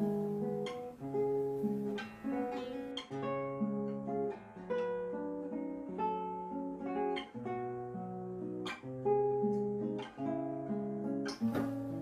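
Background music: a solo classical guitar playing a slow piece, single plucked melody notes over sustained bass notes.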